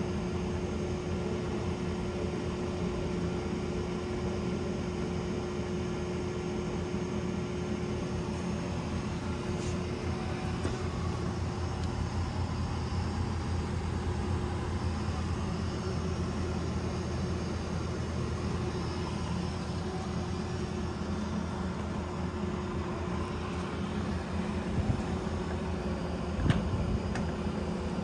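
Mori Seiki MS-2000G heavy-duty engine lathe running, with a steady mechanical hum and a constant whine from the spindle drive. A sharp click near the end.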